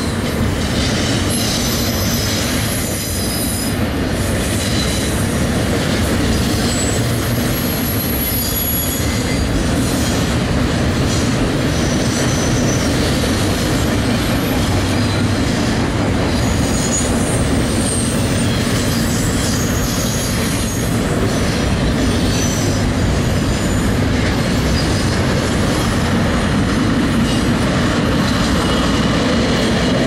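Norfolk Southern double-stack intermodal freight train rolling past, a steady loud rumble of well-car wheels on the rail with scattered short, high-pitched wheel squeals.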